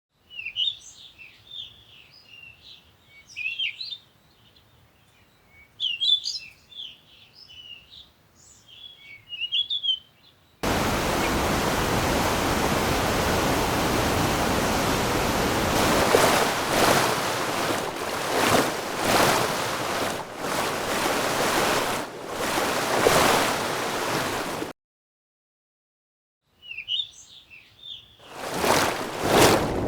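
Edited sequence of nature sound effects: small songbirds chirping in quick high phrases for about ten seconds, then a hard cut to loud surf with waves surging every second or two. After about two seconds of dead silence the birdsong returns, and a loud rush of surf comes in near the end.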